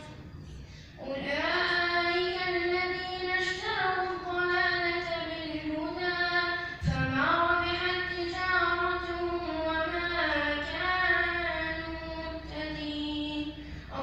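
A boy reciting the Quran aloud as prayer leader, in a slow melodic chant of long held notes that rise and fall, into a microphone. The voice comes in about a second in and pauses once for breath midway.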